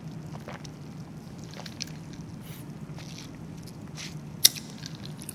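Steady low hum of room ambience, with faint scattered clicks and one sharp tap about four and a half seconds in.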